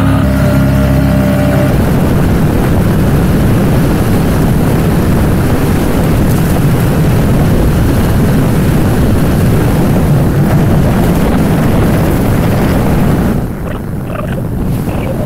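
CFMoto Cforce 1000 ATV's V-twin engine running under way, an even engine tone for the first couple of seconds giving way to a dense rushing noise of engine and wind on the microphone. About 13 seconds in the sound drops to a quieter level.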